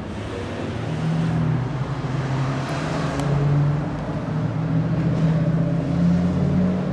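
Honda Monkey 125's air-cooled single-cylinder four-stroke engine running, its revs rising and falling a few times as the throttle is blipped.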